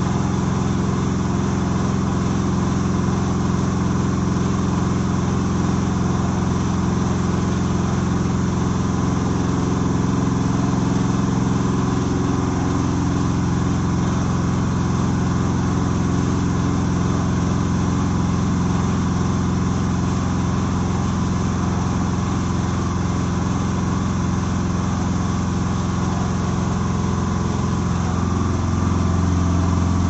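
Self-loading concrete mixer's 3 kW motor running with a steady low hum while its hydraulic loading hopper is raised. The hum gets louder near the end.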